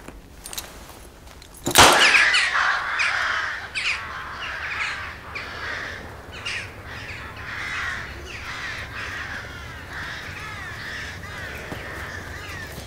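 A single loud bang about two seconds in, the shot of a popgun (a Soviet toy pistol), then a flock of crows cawing, many calls overlapping.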